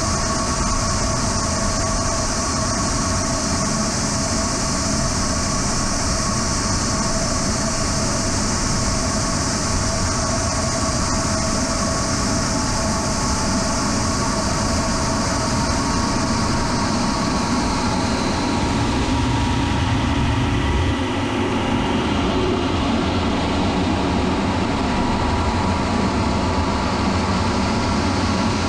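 Onboard camera sound of a Sonex SubSonex mini jet in flight: the steady whine of its small Czech-built turbojet over rushing wind noise. The high hiss fades about two-thirds of the way through.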